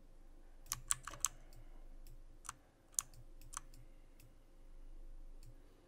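Sharp clicks of a computer mouse and keyboard: a quick cluster of four about a second in, then single clicks at about two and a half, three and three and a half seconds.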